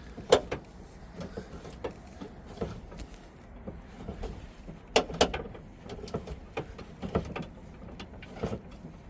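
Spare-tire hoist under an Infiniti QX80 being cranked down with the tire-tool rods, making irregular metallic clicks and knocks as the spare tire lowers on its chain.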